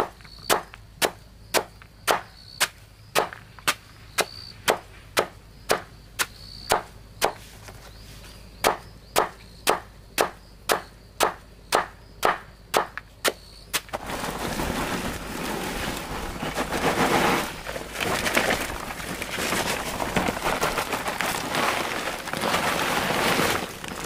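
Steady chopping, sharp even strikes about two a second, which stop about 14 seconds in; a dense crackling noise then takes over.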